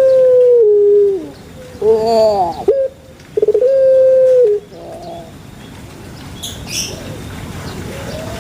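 Puter pelung dove (Streptopelia risoria) cooing: a long held note that drops in pitch, a short rough, wavering call about two seconds in, then a second long steady note ending in a drop. After about five seconds the calls stop and it goes quieter.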